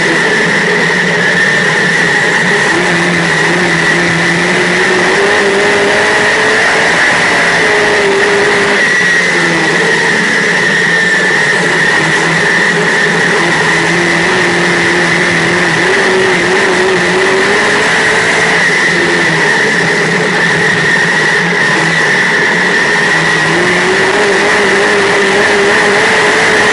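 Dirt modified race car's V8 engine at racing speed, heard from inside the car, its pitch dropping as it lifts for each turn and climbing again on the straights every several seconds. A steady high-pitched whine runs alongside the engine.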